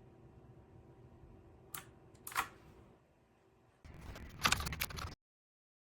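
Typewriter-style mechanical keyboard keys clacking: two separate key presses, then a quick run of typing about four seconds in that cuts off suddenly.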